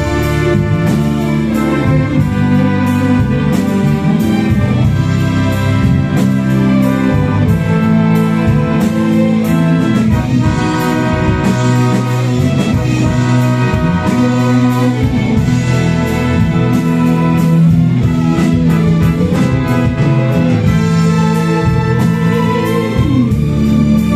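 Orchestra with a string section of violins and cellos playing long held chords over a steady beat.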